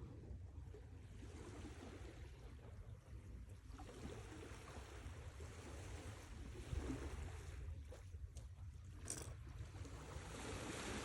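Sea waves washing onto the shore: a steady low rumble with swells of surf hiss, the largest near the end. A short click about nine seconds in.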